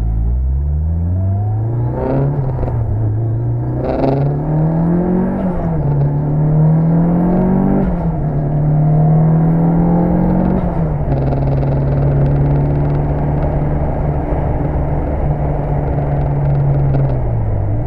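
Tuned Mitsubishi Lancer Evolution VI Tommi Makinen Edition's turbocharged 2.0-litre four-cylinder accelerating hard through the gears. Its pitch climbs and drops back at each upshift, roughly every two seconds, with sharp cracks at the first few shifts. It then holds a steady high speed and drops in pitch as it eases off near the end.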